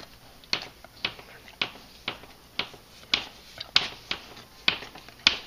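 A pet licking a person's hand: a run of short, wet smacks, about two a second.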